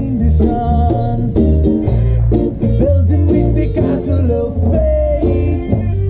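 Reggae band playing live: electric guitars, ukulele and a pulsing bass guitar over a steady beat, with a man singing lead.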